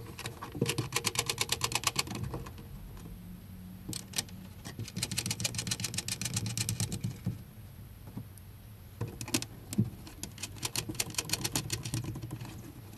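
Several runs of rapid clicking, about ten clicks a second, as the tail light's mounting nuts are run onto their studs.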